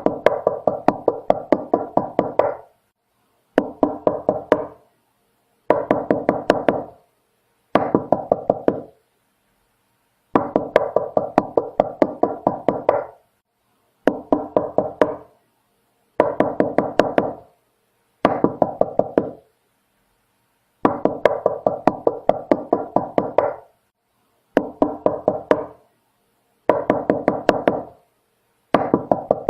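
Knocking on a door: about a dozen runs of quick knocks, each run a second or two long, with short silent gaps between them.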